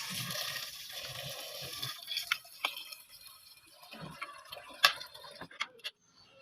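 Water running into a pot for about two seconds, then scattered clinks and knocks of the pot and kitchen utensils being handled.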